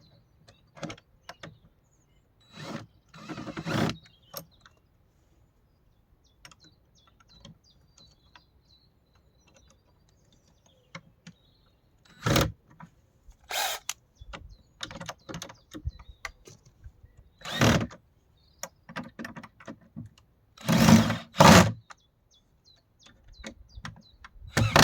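Power drill running in several short bursts, as when driving screws, between small clicks and knocks of tools and hardware being handled.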